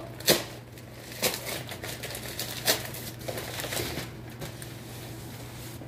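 A plastic mailer bag being handled and opened: rustling with a few sharp clicks spread through, the loudest about a third of a second in.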